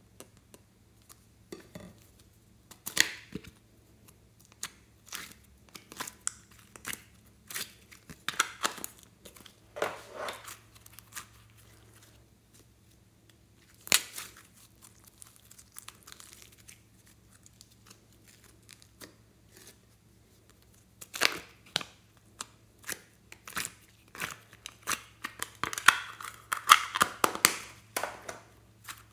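Glossy slime being peeled out of plastic heart-shaped tubs and pulled and stretched by hand: scattered sharp clicks and sticky crackling, a few louder clicks among them, the crackling densest near the end.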